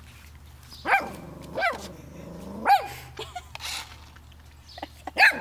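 Puppy barking at a toy remote-control car: four short, high barks that rise and fall in pitch, three in the first three seconds and one more near the end.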